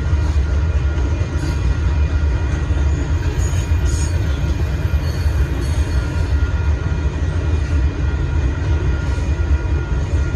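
Union Pacific freight train of boxcars rolling past, a steady heavy rumble of wheels on the rails with faint, steady high-pitched tones above it.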